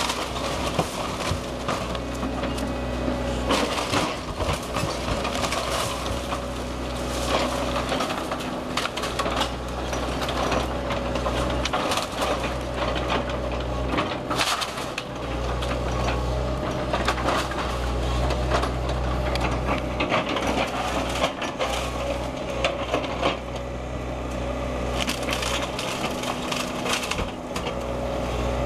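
Link-Belt tracked excavator's diesel engine running steadily while its grapple tears into a brick house's wooden roof framing and wall: repeated cracking and splintering of timber and crashes of falling debris.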